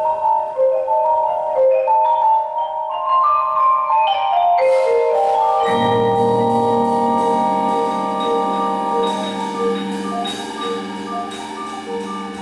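Percussion ensemble playing marimbas and other mallet keyboard instruments: a quick run of struck, ringing notes, then low held notes joining about six seconds in under the upper melody.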